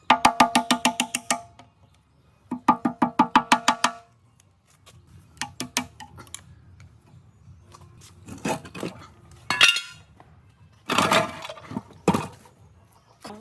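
Metal being struck in two quick runs of ringing taps, about ten a second, followed by scattered clinks and scraping of metal parts.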